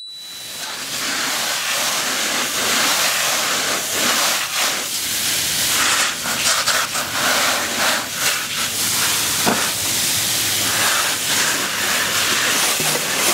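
Garden hose spray nozzle hissing as its jet of water sprays against a black plastic tray, the hiss rising and falling a little as the spray moves. It fades in over the first second.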